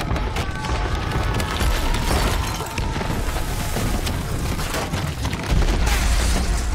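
Film sound effects of an earthquake: a deep, continuous rumble of a shaking building, with rattling and crashing debris, that grows louder about five and a half seconds in.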